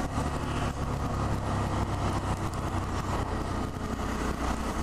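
Honda Monkey 125's air-cooled 125cc single-cylinder engine running steadily on the move, with wind and road rush on the microphone.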